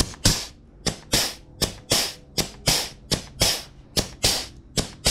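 Pneumatic grease gun cycling: a rapid, even series of short, sharp air pops, about three a second, as it pumps grease into the grease fitting of a zero-turn mower's front caster wheel.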